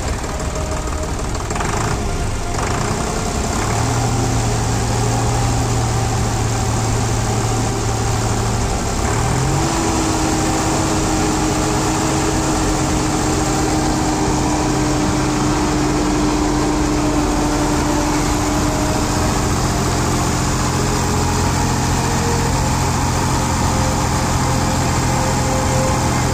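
An engine running steadily. About nine seconds in its pitch glides up a step and then holds steady, over a dense, continuous background din.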